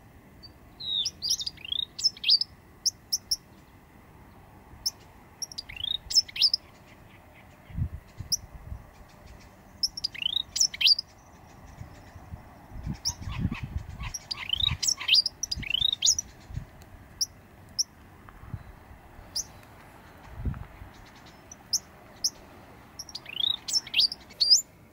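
Eastern bristlebird singing: short phrases of quick sweeping whistled notes, repeated in bursts every few seconds.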